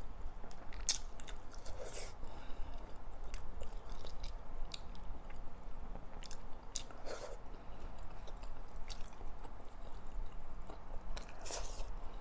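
Chewing and wet mouth smacks of a person eating rice with pinakbet (pork and vegetables), a steady run of small clicks with a few louder smacks, the loudest near the end.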